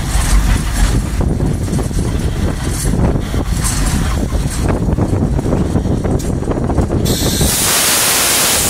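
Cab of Rio Grande K-36 #484, a narrow-gauge 2-8-2 steam locomotive, on the move: a steady rattle and clank of the cab and running gear. About seven seconds in a loud hiss starts suddenly and lasts about a second and a half.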